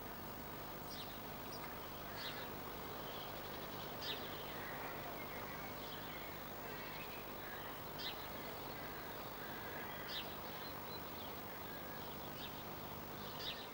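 Faint steady hiss and low hum from an old VHS tape transfer, with a few faint short chirps or ticks scattered through.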